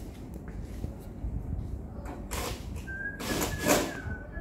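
Metal lid of an amplifier being slid and scraped into place: two rasping strokes, the second longer and louder. Near the end someone starts whistling a tune.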